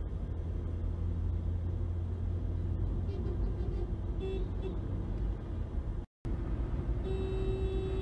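Steady low road and engine rumble heard from inside a moving car on the highway. The sound cuts out for an instant about six seconds in, and about a second later a vehicle horn starts a long steady note.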